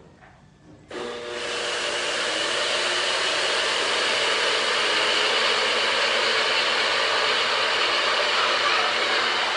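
A running appliance's steady, loud rushing noise, switching on suddenly about a second in.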